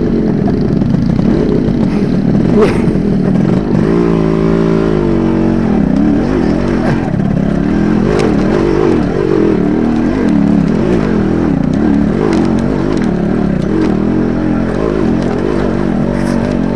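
Yamaha motorcycle engine running under the rider as it crawls over a rocky dirt track, its revs rising and falling. It holds a steady pitch for a second or so about four seconds in.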